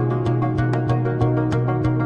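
Background music with a steady beat: held bass and chord notes over light percussion ticking about four times a second.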